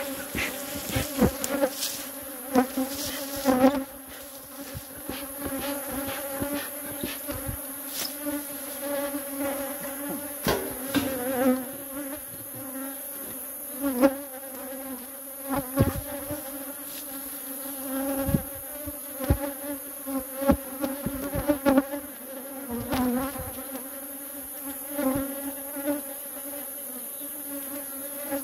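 Honeybees buzzing in a steady, wavering drone around an opened beehive, with scattered sharp knocks and taps throughout.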